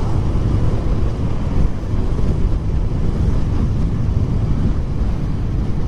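Wind buffeting the microphone of a moving Honda Click 125 scooter, with the scooter's single-cylinder engine running steadily underneath at cruising speed.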